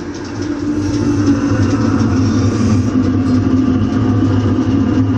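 Homemade waste-motor-oil furnace running with a steady low hum and rushing burn noise, which gets louder about a second in. The oil feed has just been turned back down from a rich runaway burn.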